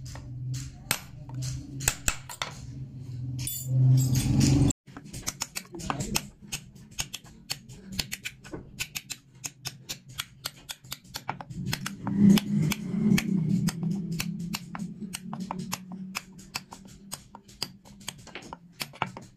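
Small hammer tapping a steel chisel into a hardwood panel in quick, light strikes, several a second, as a pattern is cut by hand. There is a low background hum with music or voices under it.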